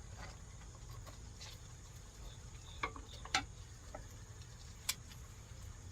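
Faint outdoor background: a steady high insect trill over a low hum, with a few sharp clicks, two close together about three seconds in and one more near the end.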